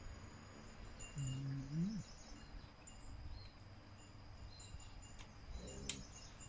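A man chewing food with an appreciative hummed "mm" that rises in pitch at its end, about a second in. Near the end comes another short hum and a smack of lips on his fingers, with a few faint bird chirps behind.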